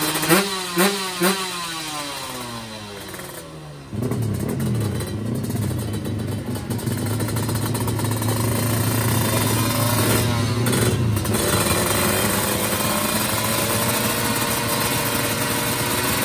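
Drag-racing motorcycle engines at the start line: three quick throttle blips near the start, then the revs sliding down over a few seconds. About four seconds in, a louder engine takes over and runs steadily with a wavering pitch.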